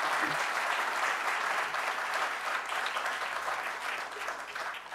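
Audience and panelists applauding, steady at first and then dying away near the end.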